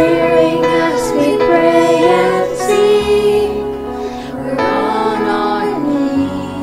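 Children's voices singing a slow worship song together over sustained held chords in the backing.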